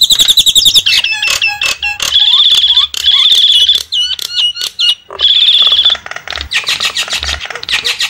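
Javan mynas (jalak kebo) calling noisily: fast, shrill chattering trills and squawks in bursts with brief gaps, a little quieter near the end. This is a bird-trapping lure recording (suara pikat) used to draw in wild mynas.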